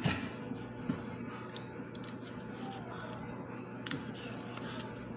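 Soft handling clicks from a plastic yogurt cup as yogurt is emptied into a plastic tub of macaroni, over a steady low hum.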